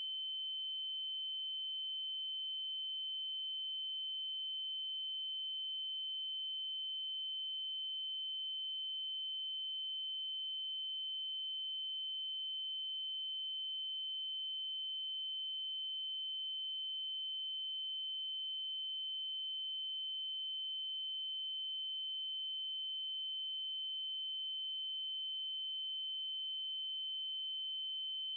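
Synthesized 3072 Hz triangle-wave tone: one steady, unbroken high-pitched note with a slightly hollow edge from its faint upper overtones.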